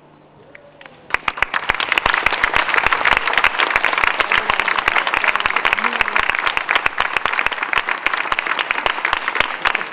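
Audience applauding, starting with a few scattered claps and swelling about a second in into full, steady applause.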